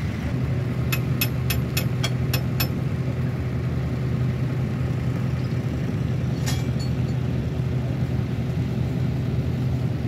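Tractor engine running steadily at idle, with a quick run of about eight sharp clicks between one and three seconds in and a single click later on.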